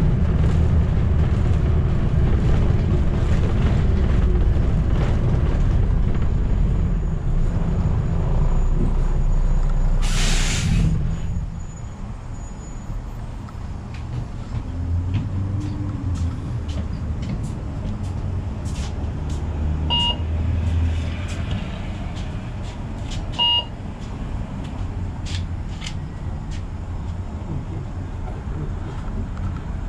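Interior of a city bus in motion: a steady low rumble that drops off after about 11 seconds as the bus slows. A short burst of air-brake hiss comes just before it quietens, and two short electronic beeps sound near the middle.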